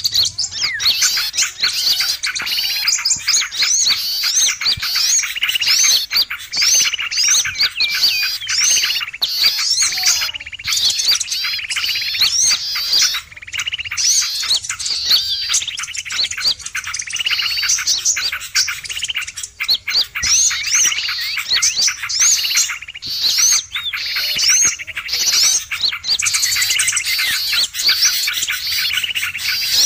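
Dense, noisy chorus of many small songbirds chirping and twittering over one another without pause. It is a bird-lure (suara pikat) recording of agitated small birds.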